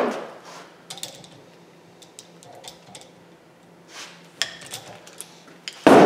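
A few faint, scattered light clicks and ticks of metal tools being handled on a workbench, over quiet room tone.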